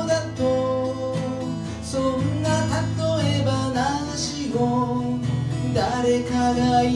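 Acoustic guitar strummed steadily, accompanying a song.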